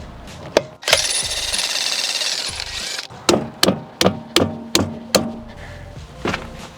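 Impact wrench hammering on a stuck wheel bolt in one burst of about two seconds, followed by about six sharp metallic clanks, roughly three a second.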